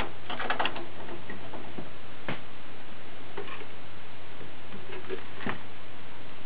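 Clicks and taps of mouse and keyboard cable plugs being handled and pushed into a desktop computer's rear ports: a quick cluster of clicks just under a second in, then a few single clicks spaced a second or more apart.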